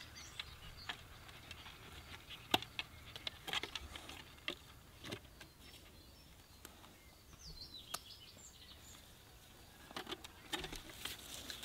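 Faint scattered light taps and rustles as a dog and kittens scuffle on and around a wooden crate among leafy garden plants, with a few short bird chirps a little past halfway.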